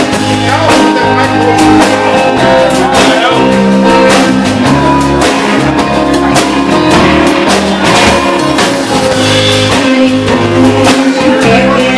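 Band music with guitar, bass and drums keeping a steady beat, between sung lines of the song.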